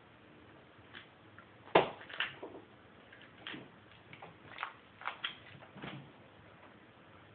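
Masking tape being pressed down, rubbed and cut with an X-Acto knife on a brake caliper: a string of short crackles, scrapes and light taps at irregular intervals, the loudest about two seconds in.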